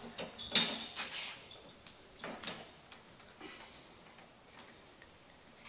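A sharp metallic clink about half a second in, then a few fainter clicks and ticks, as a plastic sign-face strip is handled and clamped in a steel bench vise.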